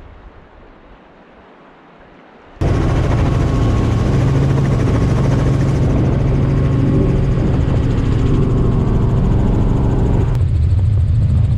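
Quiet wind on the microphone at first; about two and a half seconds in it cuts suddenly to the loud, steady drone of a helicopter's engine and rotor heard from inside the cabin.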